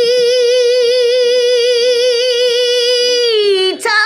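A woman's voice holding one long sung note with a steady vibrato, which slides down in pitch and breaks off near the end.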